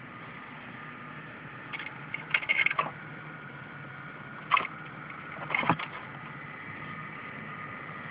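Steady electrical buzz with a thin high whine from a homemade capacitor-fed 150 Hz desulphator charger. Short bursts of rattling crackle break in about two seconds in, again around four and a half seconds, and near six seconds.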